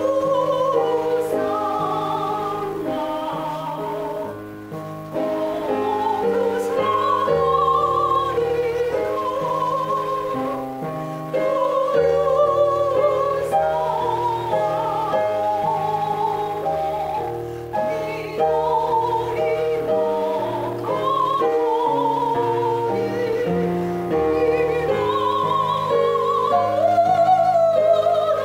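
A woman singing a Japanese art song solo in a classical, operatic style with wide vibrato, over a held-chord instrumental accompaniment.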